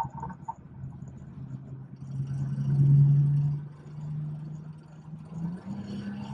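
BMW 440i's tuned, turbocharged B58 inline-six running under throttle on the road, swelling loud for about a second in the middle and then easing off. Its pitch steps up near the end.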